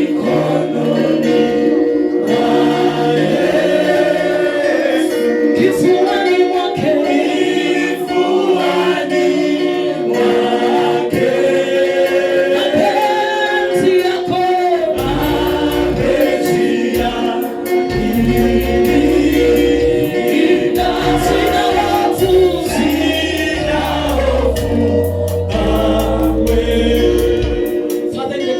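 Church choir singing a gospel song over a held accompaniment chord; a low bass line joins about halfway through.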